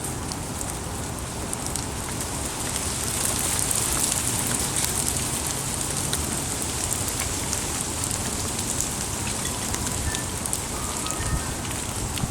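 Rain shower falling steadily, an even hiss dotted with many small scattered drop ticks.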